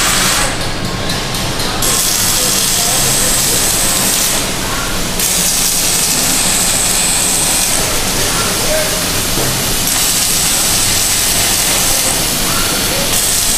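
Robotic arc welding of steel trailer ramps: the welding arc gives a loud, steady hiss with spatter. The high end drops away briefly about half a second in and again around four and a half seconds in.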